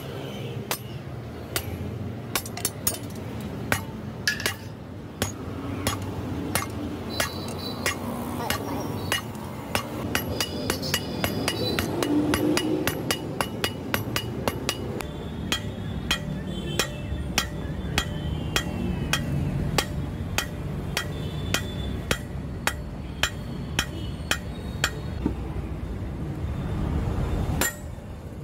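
Hammers striking red-hot leaf-spring steel on an anvil while a billhook blade is forged: a long run of sharp blows, about two a second, many with a short metallic ring. The blows thin out near the end.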